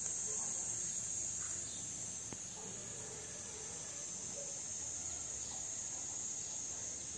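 Crickets chirring in a steady, high-pitched trill, over the faint low rush of a gas stove burner.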